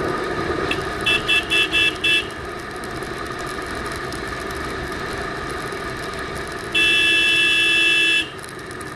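Single-cylinder Royal Enfield Thunderbird running steadily on the move, muffled by the action camera's waterproof case. A vehicle horn toots five quick times about a second in, then gives one long honk of about a second and a half near the end.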